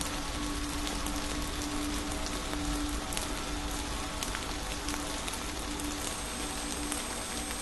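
Dense crackling hiss with many small clicks, like rain or static. Under it a low hum pulses on and off about once a second, and a thin high whine comes in about six seconds in.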